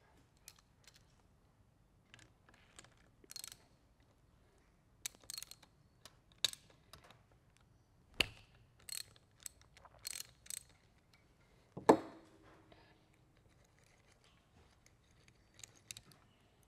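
Socket ratchet clicking in short bursts and clacking against metal while a 10 mm hex bolt on a pit-bike engine is worked loose. There are sharp knocks, the loudest about twelve seconds in with a brief metallic ring: the bolt is being shocked loose so the shift shaft inside doesn't turn.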